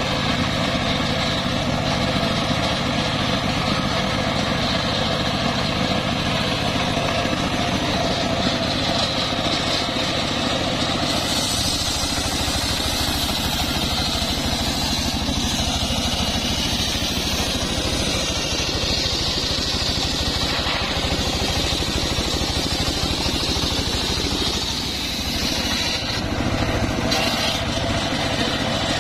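Engine-driven homemade circular sawmill running steadily. About ten seconds in, the blade starts cutting a heavy rain tree (trembesi) log, and a high, hissing sawing sound joins the engine's steady note, dropping away shortly before the end.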